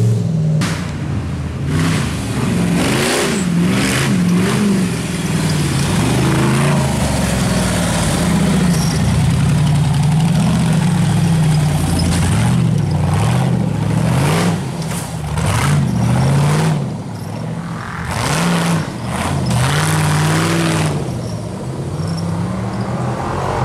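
Off-road race buggy's engine revving hard over and over, its pitch climbing and dropping with each stab of the throttle as the buggy works up a dirt climb. Repeated rushes of noise come from the tyres spinning and flinging dirt.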